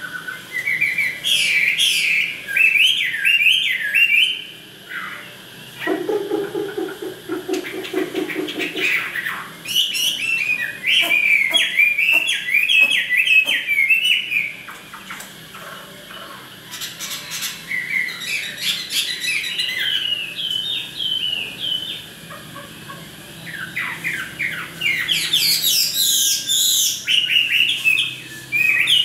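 Chinese hwamei (fighting songbird) singing in bouts of rapid, varied warbling phrases separated by short pauses. A lower, rapidly pulsing sound comes between the first bouts, about six to nine seconds in.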